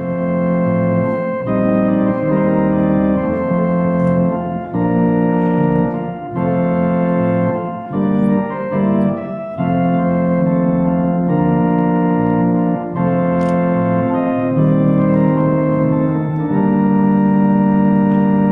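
Organ playing slow, sustained chords that change every second or two, with a run of quicker notes about eight to nine seconds in and a long held chord near the end.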